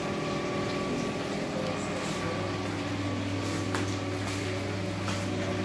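Steady mechanical hum and whir of kitchen appliances running, with a low hum that grows stronger about two seconds in.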